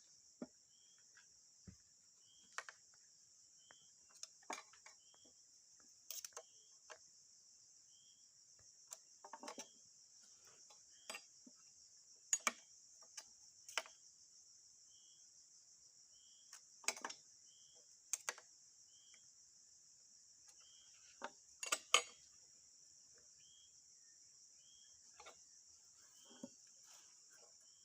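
Insects shrilling steadily in a high band, with a faint short chirp repeating every second or so. Scattered sharp clicks and knocks are heard throughout, the loudest a cluster about 22 seconds in.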